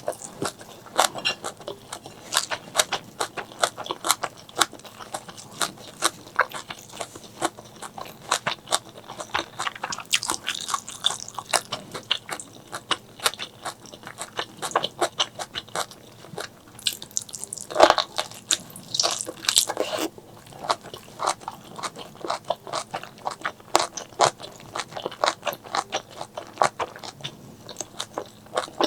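Close-miked eating: steady chewing with rapid crisp, wet crunching clicks, louder in a burst about two thirds of the way through.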